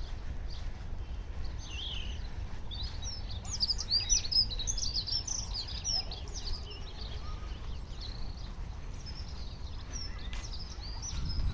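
Small birds chirping in quick, overlapping calls, busiest in the middle, over a steady low rumble.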